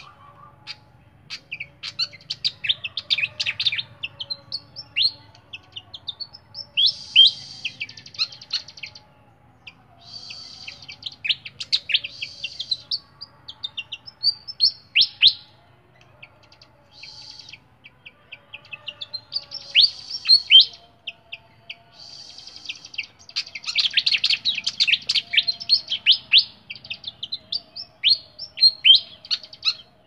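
Caged sikatan, a small flycatcher-type songbird, singing: bursts of sharp, high, quickly falling chirps lasting a few seconds each, with short pauses between.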